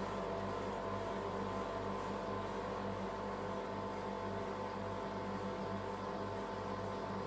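Steady machine hum from the rolled-ice-cream cold plate's refrigeration unit running, a few steady tones over a faint hiss.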